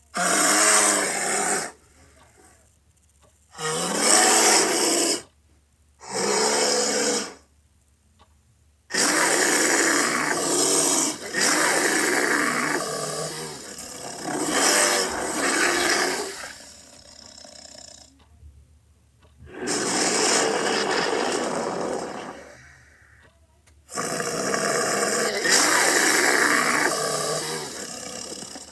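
Female black bear sound effects: a string of about eight rough, pitched growls and roars, each lasting one to four seconds, with short silent gaps between them.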